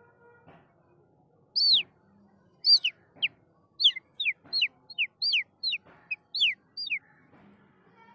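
A bird calling: a quick run of about a dozen short whistled notes, each sweeping down in pitch, starting a second and a half in.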